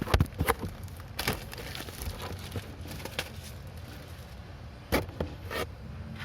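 Paper rustling and swishing as an instruction manual is opened and its pages are turned, in a few short bursts over a steady low hum.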